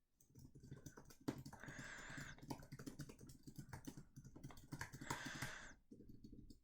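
Keys of a new Apple Magic Keyboard being tapped and typed on in quick, light clicks. Two short, louder noisy stretches break in, one about two seconds in and one near the end.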